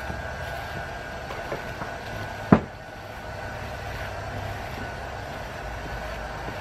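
A steady low background rumble with a faint steady whine over it, and one sharp knock about two and a half seconds in.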